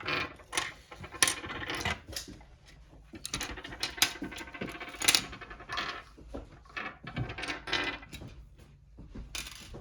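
Small plastic construction-kit parts clicking and clattering as they are rummaged through and handled: many quick, irregular clicks and rattles.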